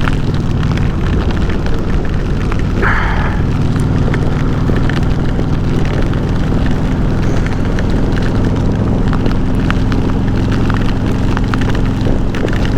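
Harley-Davidson V-twin motorcycle running at a steady cruising speed, heard under heavy wind rush buffeting the helmet microphone, with many small ticks hitting through it.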